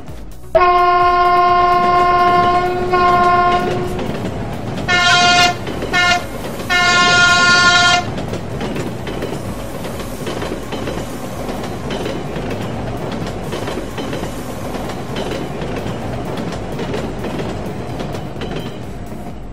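Train horn sounding one long blast, then three shorter blasts, over the steady rumble and clatter of a train running on rails.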